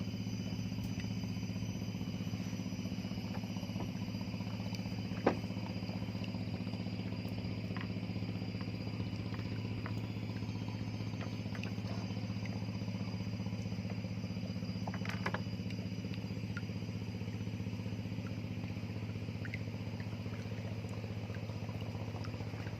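A motor running steadily with an even, unchanging low hum, like an engine at idle. A sharp click comes about five seconds in.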